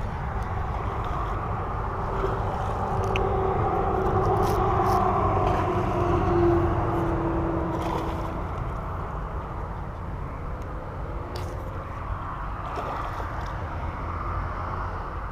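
Road traffic rumbling steadily, with a vehicle passing on the nearby road: its engine note swells to a peak about six seconds in and then fades. A few short sharp splashes come from the hooked peacock bass thrashing at the surface.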